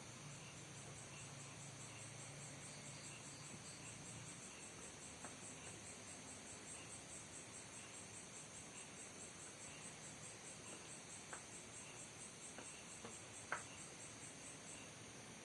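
Insects chirping faintly and steadily in an even, rapid pulse of about three or four chirps a second, with a few faint clicks in the second half.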